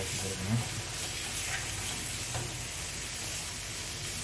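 Chicken pieces sizzling in masala in a frying pan while a spatula stirs them, with a few soft scrapes against the pan.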